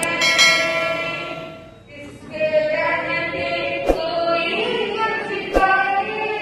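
Voices singing a Jain devotional bhajan. A held note fades about two seconds in, then the singing resumes, with two short sharp clicks later on.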